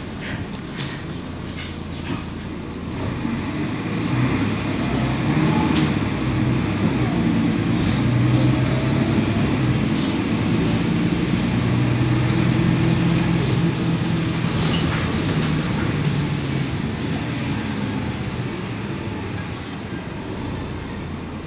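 Cabin sound of a Mercedes-Benz OC500LE bus under way: its diesel engine runs louder with a rising note from about four seconds in as the bus speeds up, holds, then eases near the end, over steady tyre and road noise. A few interior rattles click in the first couple of seconds.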